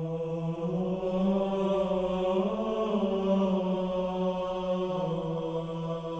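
Intro music of deep, held chanting voices: one low note sustained like a drone, its pitch shifting a little in the middle.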